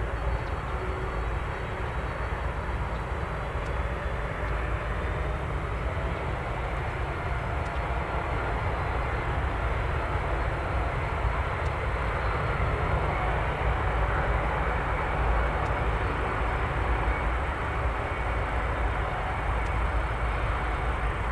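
Airbus A380-841's four Rolls-Royce Trent 970 turbofans at takeoff power as the airliner lifts off and climbs away: a steady, deep, rushing jet roar that grows a little louder past the middle.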